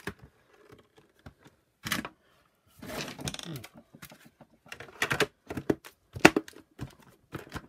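Hard plastic housing parts of a Shark vacuum power nozzle clicking and knocking together as they are handled and the cover is pressed into place. A series of sharp taps and clicks, thickest in the second half, the loudest about six seconds in.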